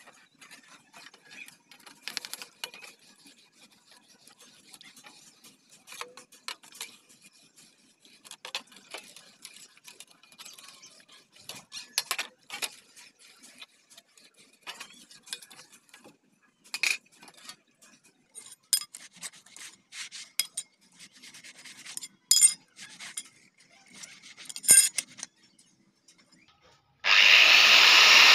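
A rusty curved steel blade scrubbed by hand in a steel pan of water: irregular scraping and rubbing strokes, some sharper than others. About a second before the end an electric angle grinder cuts in, running loud and steady.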